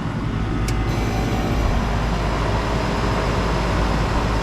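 Outdoor central air conditioner condensers running, compressor hum and fan noise. A sharp click less than a second in, then the sound swells slightly as a vintage Magic Chef condenser starts up.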